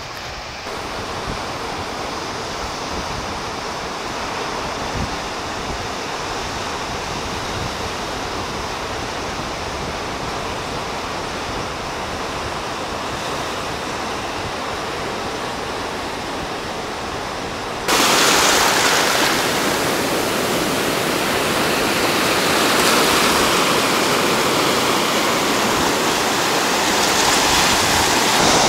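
Sea surf washing onto a pebble beach, a steady rush. About 18 seconds in it cuts abruptly to louder, brighter rushing water, close to shallow water running over pebbles.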